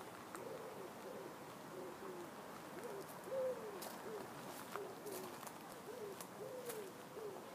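Pigeons cooing: a steady run of low, soft coos, each rising and falling in pitch, about two a second, one louder coo near the middle.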